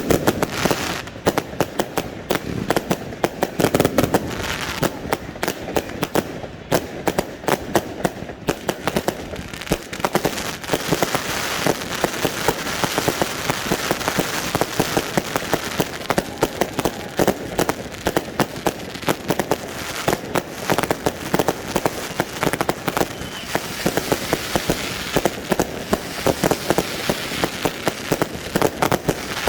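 Fireworks finale heard close to the launch site: a rapid barrage of bangs, many a second, which runs together into a dense continuous wash about ten seconds in.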